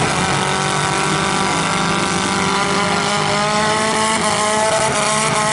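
Small derby cars' engines running hard on a figure 8 track, one engine's pitch climbing gradually through the second half as it accelerates.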